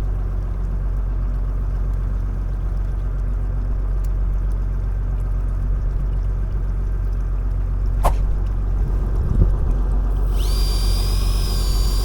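Steady low drone of a fishing boat's engine running. A single sharp click comes about eight seconds in, and a cluster of high steady tones starts near the end.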